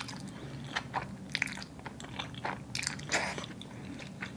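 Close-up eating sounds of spaghetti: noodles sucked into the mouth and chewed, with short wet clicks and smacks.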